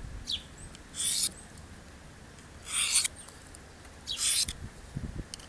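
Knife blade drawn along the ceramic rod of a Victorinox dual pocket sharpener: three short rasping strokes about a second and a half apart. Wind rumbles on the microphone underneath.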